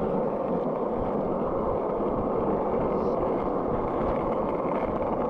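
Steady, loud rushing noise of a bicycle ridden with two people aboard: wind on the microphone mixed with tyre and road noise.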